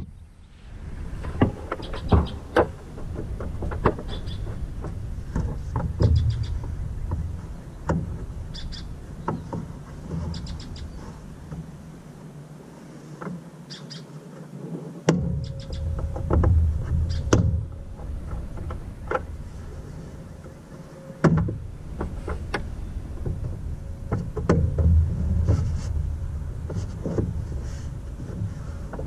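Scattered clicks and knocks of parts being handled and fitted on a lawn tractor, over a patchy low rumble of wind on the microphone.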